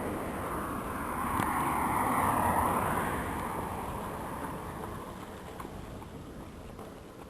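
A road vehicle passing by: a rushing tyre-and-engine noise that swells to a peak about two and a half seconds in and then fades away.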